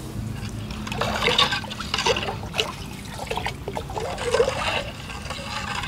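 Water trickling and splashing in a clay pot of rasam, uneven and irregular.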